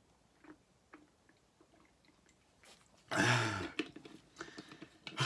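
A person swallowing with a few faint gulps, then about three seconds in a loud wordless pained groan, and another starting near the end: a reaction to the burn of a very hot chili chip.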